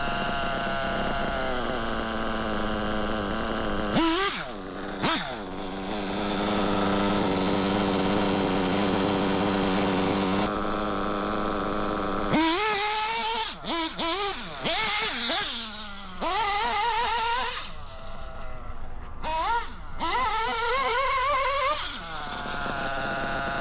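Novarossi nitro RC engine with a tuned pipe running at a steady pitch, blipped sharply twice about 4 and 5 seconds in. From about halfway it revs up and down rapidly and repeatedly, then settles back to a steady tone near the end.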